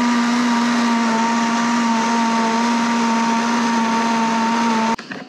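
Countertop blender running at a steady speed, blending pumpkin puree, with a steady motor hum and whine that cuts off suddenly near the end.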